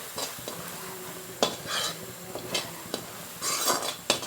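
Spatula stirring a thick jaggery-and-grated-coconut mixture in a kadai, knocking and scraping irregularly against the pan, with a longer scrape near the end over a faint steady sizzle. The mixture is being cooked down until it curls together into the kamarkattu stage.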